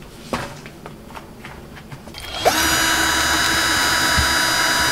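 Electric drill switched on about halfway through, quickly winding up and then running steadily at speed, spinning a bottle cap of melted sugar to throw out cotton candy. Before it starts there are only a few light taps and clicks.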